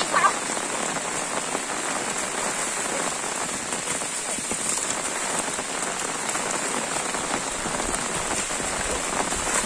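Rain falling steadily on a muddy dirt road and foliage, an even, unbroken hiss.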